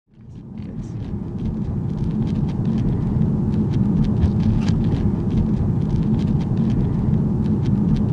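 Steady low rumble of a car heard from inside the cabin, fading in over the first second, with faint scattered clicks and ticks.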